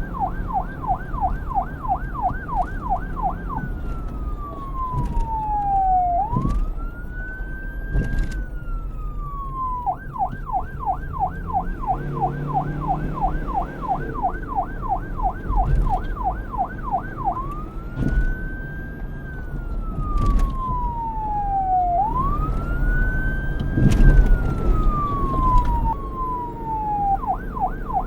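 Electronic police siren alternating between a fast yelp, warbling about three times a second, and a slow wail that sweeps down over a few seconds and climbs back up. It changes over four times: to the wail a few seconds in, back to the yelp near the middle, to the wail again, and to the yelp near the end, with a steady low rumble underneath.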